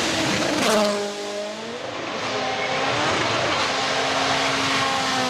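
Rally car engine running hard over a steady rush of tyre and gravel noise. About a second in there is a sharp crack and the engine note drops, then it climbs back up and holds high.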